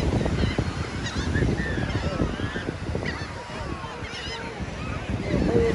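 A flock of birds calling, many short squawks overlapping one another, over a low rumble of wind on the microphone.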